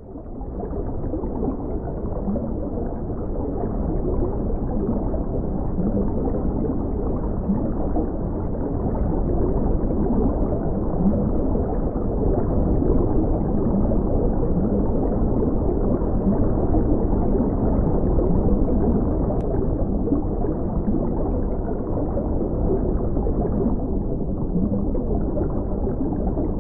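Steady, muffled gurgling and bubbling of water, fading in over the first second or two.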